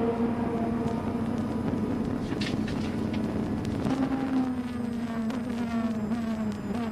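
Nissan Z GT500 race car's turbocharged 2.0-litre four-cylinder engine running hard, heard through the onboard cockpit camera. The engine note holds steady, then drifts slightly lower in pitch in the second half, with a few faint sharp clicks.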